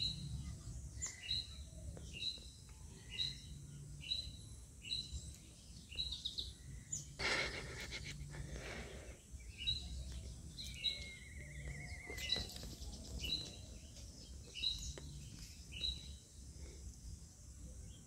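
Birds chirping outdoors: a short high note repeated about once a second, with a trilling call about 11 seconds in. A brief burst of noise comes partway through, over a low steady background rumble.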